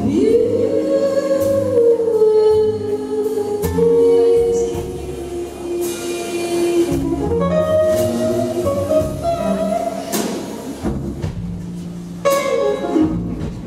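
A woman singing live with a small band of electric guitar, upright double bass and drums. Her voice slides up into a long held note at the start, with light cymbal or drum strikes under it.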